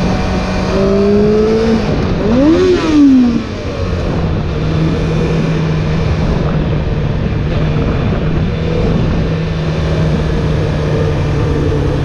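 Honda CBR600F4's inline-four engine under way with wind rushing over the microphone. Its note climbs in the first couple of seconds, then about two and a half seconds in the engine revs up sharply and falls back, and it settles into a steady lower note for the rest.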